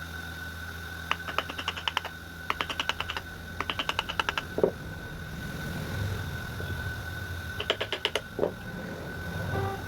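Rapid light tapping on wood carving tools, in four short bursts of quick taps about ten a second, with a dull knock after the third and fourth bursts. A faint steady whine and low hum run underneath.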